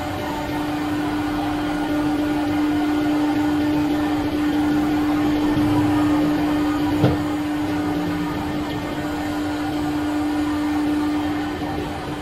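CNC router spindle running at speed while its bit engraves letters into a sheet, giving a steady high hum over the hiss of cutting, with one short sharp click about seven seconds in. The tone fades away near the end.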